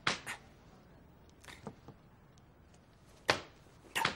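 A handful of short, sharp clicks and knocks at irregular spacing, with two near the start, a few softer ones in the middle, and the loudest two in the last second or so.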